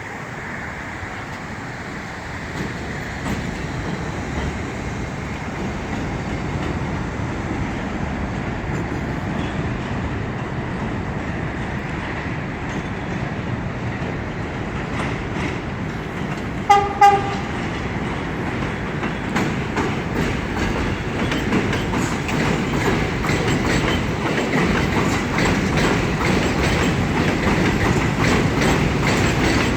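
New York City subway 6 train approaching and passing on the elevated line, its rumble growing steadily louder. About halfway through the train horn sounds two short blasts, and after that the wheels clack faster and faster over the rail joints as the cars go by.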